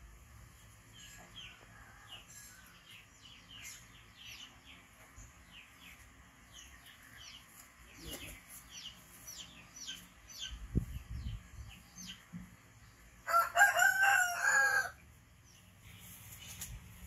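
A rooster crows once near the end, the loudest sound, over small birds repeatedly giving short falling chirps.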